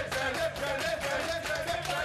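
A group of men chanting and clapping in rhythm, cheering someone on, with music underneath.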